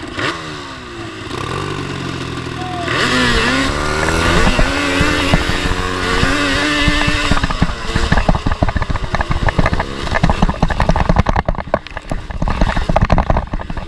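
Yamaha Banshee two-stroke twin engine in a racing lawnmower, its revs climbing and dipping as the mower pulls away. From about eight seconds in the sound turns choppy, with rapid knocks and rattles as the mower jolts over rough, rutted mud.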